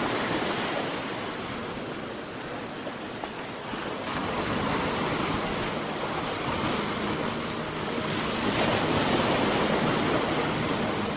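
Ocean surf: a steady wash of breaking waves that swells and eases slowly, then cuts off abruptly at the end.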